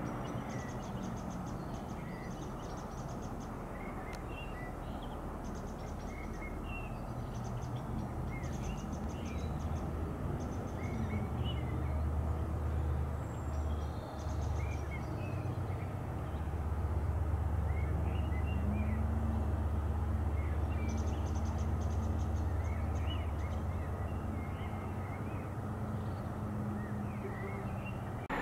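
Birds chirping at dusk, with the low rumble of a distant diesel freight train that grows stronger about halfway through and carries a steady engine hum.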